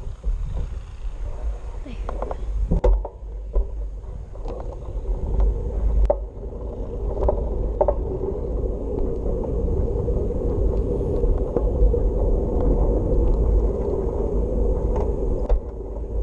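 Wind buffeting the microphone of a head-mounted camera on a moving bicycle, over steady tyre rolling noise on an asphalt path, with scattered small clicks and rattles.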